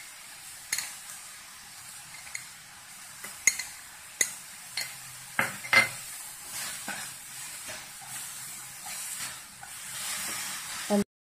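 Grated raw papaya frying in ghee in a nonstick pan: a soft, steady sizzle, with a wooden spatula scraping and tapping against the pan as sugar is stirred in. The sizzle grows stronger near the end, then cuts off abruptly.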